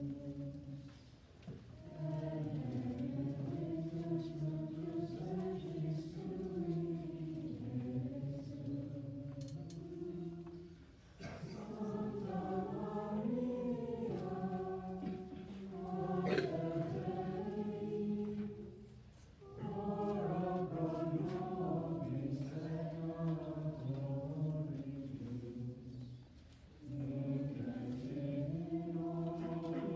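A choir singing Latin liturgical chant in long phrases, with brief pauses between phrases about every eight to ten seconds.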